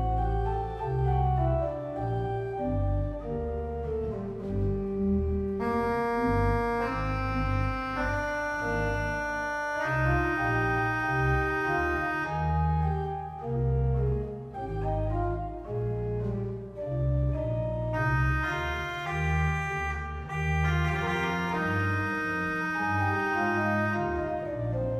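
Church pipe organ playing sustained chords as the closing postlude of the service. Brighter, higher registers join in twice for several seconds at a time.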